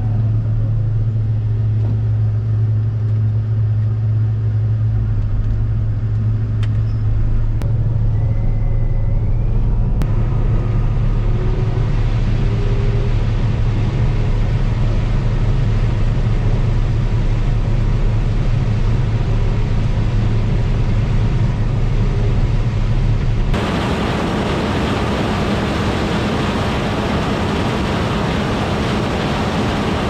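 John Deere 9670 STS combine running steadily under load while harvesting corn, its diesel engine and threshing machinery heard as a low drone inside the cab. About 23 seconds in the sound switches abruptly to a rougher, hissier sound of the combine from outside, its tires and header working through the corn stalks.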